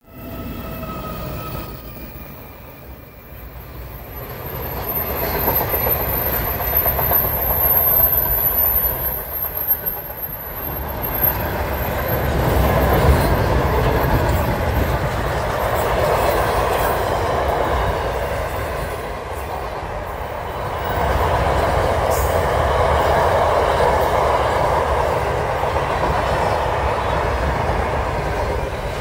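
Freight train of tank wagons rolling past close by: a steady rumble of wheels on rails that swells and eases as the wagons go by.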